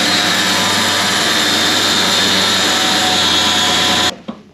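A Metabo power tool with a blade cutting through tubing around a gearbox's splined shaft, running steadily at full speed. It stops about four seconds in and starts again just at the end.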